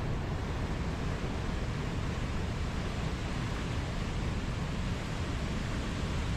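Steady rushing of water, an even unbroken noise with a strong low rumble and no surges or splashes.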